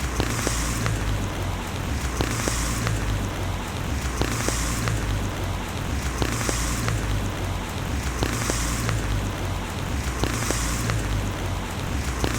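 Steady rain falling, with individual drops ticking sharply against a surface over a constant low rumble. A high hiss swells and fades about every two seconds.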